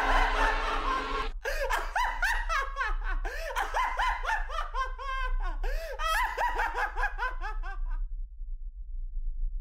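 A person laughing, a long run of quick rising-and-falling 'ha' sounds, which cuts off suddenly about eight seconds in, leaving only a low steady hum.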